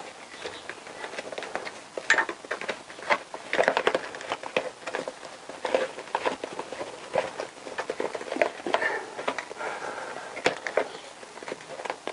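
Hands working a motorcycle wiring loom into the frame: irregular small clicks, rustling and rubbing of wires, plastic connectors and rubber boots.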